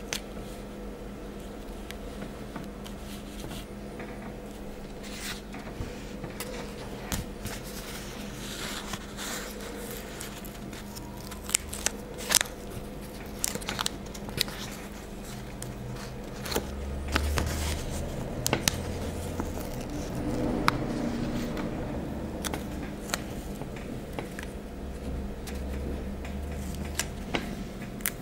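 Glossy stickers being peeled off their backing sheet and pressed and rubbed down onto paper by hand: scattered crinkles, crackles and sharp little clicks of paper and sticker film, over a faint steady hum.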